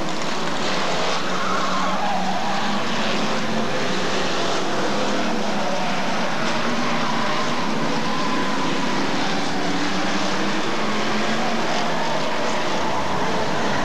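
A pack of Hotstox oval racing cars' engines running together as they lap the track, a dense steady drone with engine notes rising and falling as the cars accelerate and lift.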